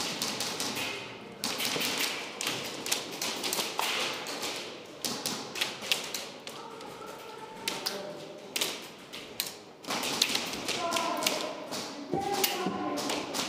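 Irregular taps, knocks and thuds close to the microphone during an airsoft game, with faint voices now and then.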